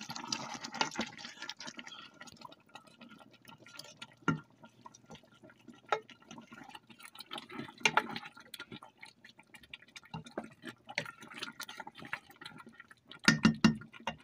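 A wooden spoon stirring chicken and oily onion sauce in a stainless steel pot: wet, liquid cooking sounds with scattered knocks of the spoon against the pot, and a quick run of louder knocks near the end.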